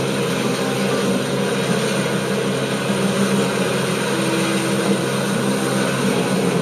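Kubota SR-J5 combine harvester running steadily as it cuts through standing rice: a dense, even drone of engine and machinery, with a brief higher tone about four seconds in.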